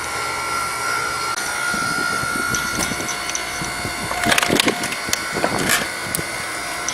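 9-ton electric hydraulic log splitter running with a steady high whine from its motor and pump. About four seconds in, wood cracks and knocks in a quick run of sharp snaps.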